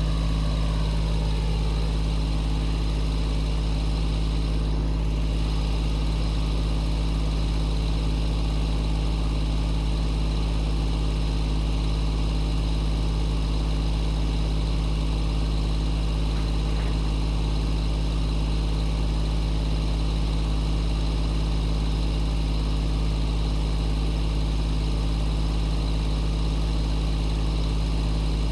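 Small tractor engine idling steadily at a constant speed, with a deep, even hum.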